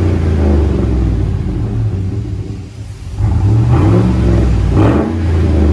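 2012 Chevy Silverado's 5.3-liter V8 revving through a 3-inch Carven R-Series stainless performance muffler, heard at the tailpipe with the exhaust cutout closed. It drops back toward idle a little before halfway, then is revved up sharply again twice.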